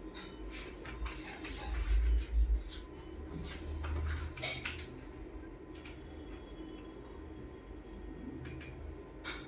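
Scattered light clicks and clattering knocks from objects being handled, with a few low thumps about two seconds in, over a steady low hum.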